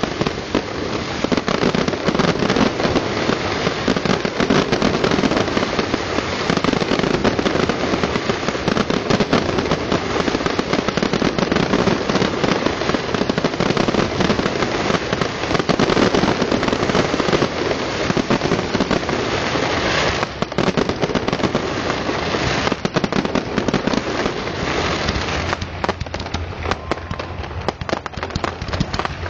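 Aerial fireworks display: many shells bursting and crackling at once in a dense, unbroken barrage, thinning a little near the end.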